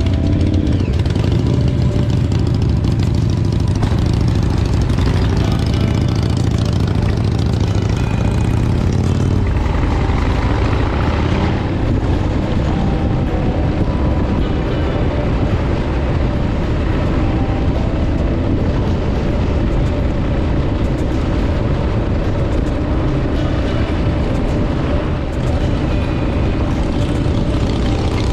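Motorcycle engine running steadily on the move, with a constant rush of noise over it; the engine note shifts about ten seconds in.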